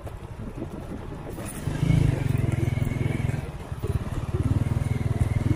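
Honda Win 100's single-cylinder four-stroke engine pulling the motorcycle across loose sand. It runs softly at first, then the throttle opens about two seconds in and it gets much louder, easing briefly a couple of seconds later before picking up again.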